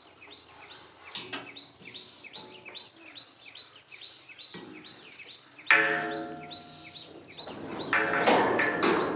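Small birds chirping over and over in quick, short calls. About six seconds in, a sudden louder pitched sound breaks in and fades, and a louder, rougher sound swells near the end.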